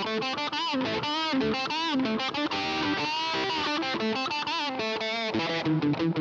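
Harley Benton TE-20 Telecaster-style solid-body electric guitar playing a quick single-note lead line with several string bends, with a little distortion.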